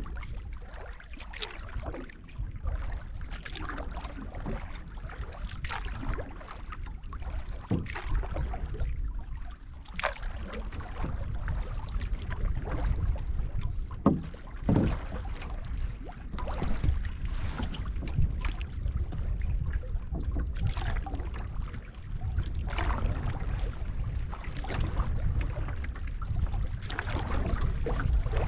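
Water splashing and lapping against the hull of a canoe under way on a choppy lake, with irregular splashes throughout. Heavy wind rumble on the microphone runs underneath.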